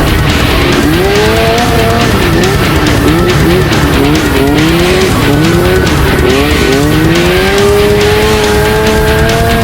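Crosskart buggy engine revving up and down again and again as it is driven, ending in a long rise near the end. Loud background music plays underneath.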